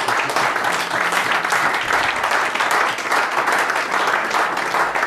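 A room of guests applauding: many hands clapping in a dense, steady patter.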